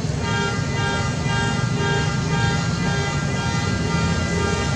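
A vehicle horn sounding in a long string of short, repeated honks at one steady pitch, over the low rumble of passing traffic.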